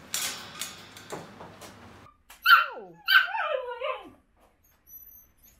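Samoyed puppies yipping and whimpering: a loud high yelp that slides down in pitch about two and a half seconds in, then a run of short whiny yips. This follows a couple of seconds of rustling and scuffling.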